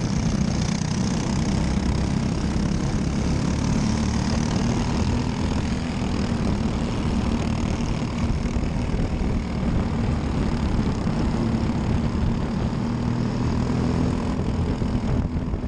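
Briggs & Stratton LO206 single-cylinder four-stroke kart engine running, a steady drone with little change in pitch.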